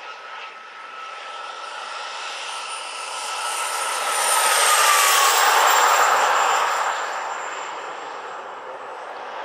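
Four JetsMunt 166 model jet turbines of a 1/13-scale RC Airbus A380 making a low flyby. The turbine whine and rush grow louder to a peak about five seconds in, where the whine drops in pitch as the model passes, then fade as it flies away.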